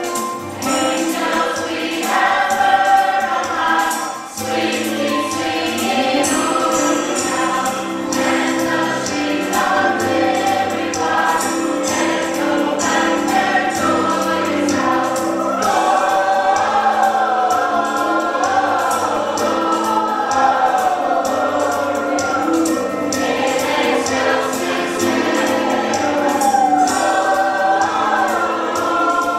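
A choir singing a song with instrumental accompaniment.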